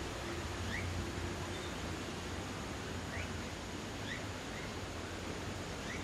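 Steady outdoor background hiss with a low hum under it, and a bird's short rising chirps repeated about once a second.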